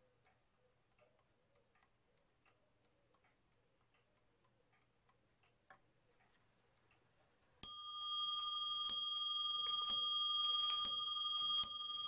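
Parrot Frères French mantel clock movement from about 1880 ticking faintly. A little past halfway it starts striking the hour: evenly spaced strokes about a second apart, each ringing on over the last.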